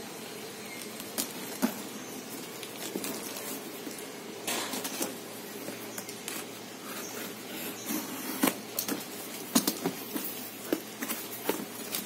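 Cardboard parcel being opened by hand: a utility knife slitting the packing tape, the tape peeled off and the cardboard flaps pulled open, heard as a string of short rustles, scrapes and clicks that come more often in the second half.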